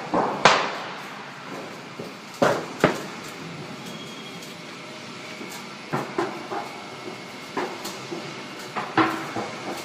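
Corrugated-sheet roll forming machine running, its forming rollers turning as the metal sheet feeds through: a steady mechanical noise broken by irregular metallic clanks and knocks, the loudest about half a second in.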